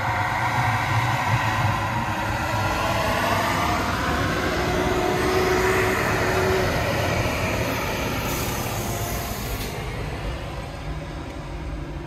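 Snowplow truck driving past with its engine running. The engine grows louder toward the middle and then fades toward the end.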